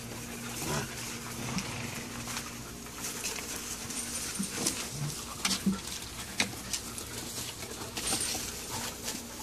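Wolfdog puppies and a Tamaskan dog play-fighting: scuffling paws on dry grass with scattered sharp scuffs and small whimpers, over a low steady hum.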